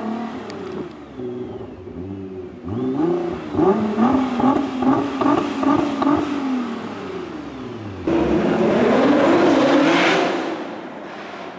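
Nissan GT-R R35's twin-turbo V6 through its quad exhaust, revved in a run of quick blips at a standstill. After a sudden change about eight seconds in, a GT-R accelerates past, loudest about ten seconds in and then fading.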